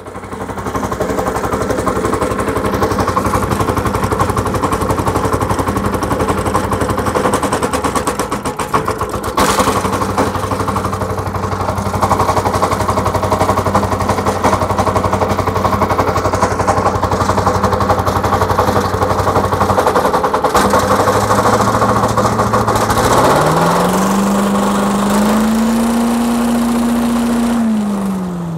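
Predator 212cc single-cylinder OHV engine driving a walk-behind leaf blower's fan. It runs steadily at first, steps up in speed about 20 seconds in and rises sharply about 23 seconds in, holds the higher speed for a few seconds, then slows again near the end as it is throttled back down.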